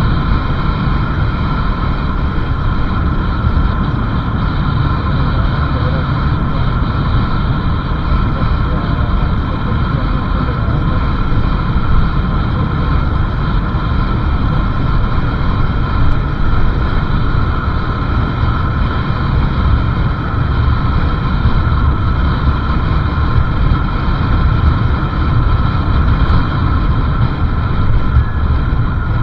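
Motorcycle riding along a road: steady engine drone mixed with a heavy rush of wind and road noise on the microphone.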